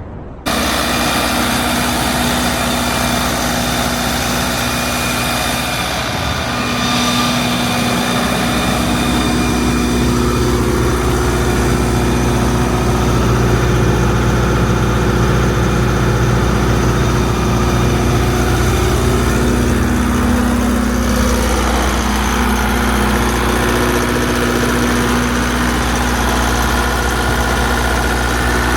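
Multiquip Whisperwatt DCA-70 generator's turbocharged four-cylinder Isuzu 4JJ1X diesel running steadily at constant speed. Its deep low tone grows stronger about eight seconds in.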